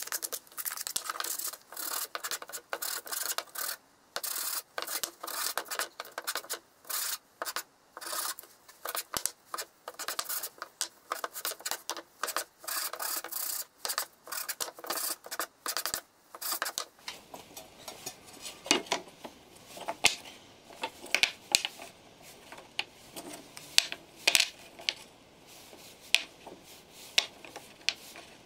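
Hand sanding: small wooden blocks rubbed back and forth on sandpaper in quick, even strokes, about two a second. A little over halfway through the rubbing stops, and wooden blocks clack and knock as they are set down and shuffled into place.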